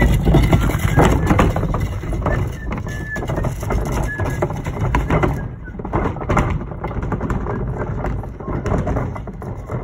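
Wheeled plastic recycling bin being pulled over snow and pavement, its wheels rumbling and clattering, with footsteps. The noise eases about halfway through.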